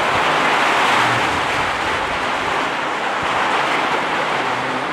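Strong storm wind blowing steadily, a loud rushing noise.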